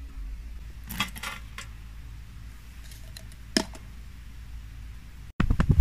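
A few sharp, light clinks and taps against a metal tin, spaced out over a low steady hum; a loud sudden noise breaks in near the end.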